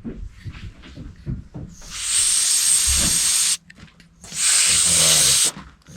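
Two loud bursts of pressurised spray hissing, each about a second and a half long, with a thin high whistle through the hiss. Light handling clicks come before them.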